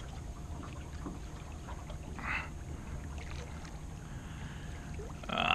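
Steady low wind rumble on the microphone with water moving around a small boat. A short noise comes about two seconds in, and a louder one right at the end.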